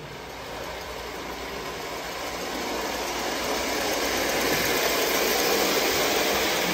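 Marx 666 die-cast steam locomotive and its freight cars running on three-rail tinplate track: a steady motor whir and wheel rattle that grows louder as the train comes closer, loudest over the last couple of seconds.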